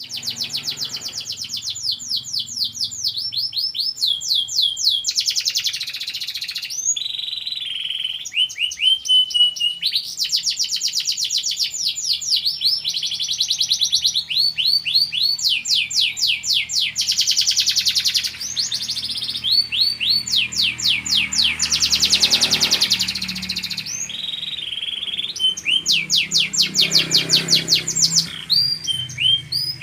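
Domestic canary singing a continuous song of fast repeated trills, switching to a new trill every second or two.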